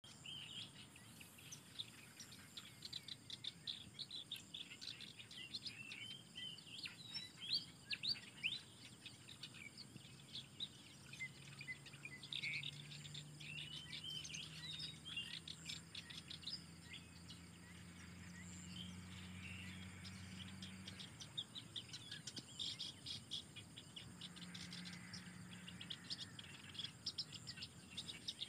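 Birds chirping and calling in quick, irregular runs of short notes, with insects in the background. A faint low hum comes in for about ten seconds in the middle and again briefly near the end.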